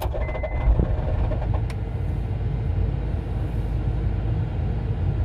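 Car struggling to start: a fast rattle with a repeating dashboard warning chime cuts off with a thump under a second in, leaving a steady low rumble. The owner puts the failure to crank down to the engine being low on oil.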